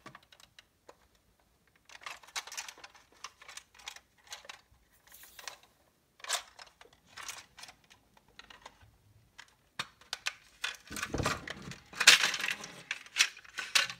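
Small plastic clicks and rattles of an OO gauge Hornby InterCity coach being handled and its roof prised off, with a louder run of clatter about eleven seconds in.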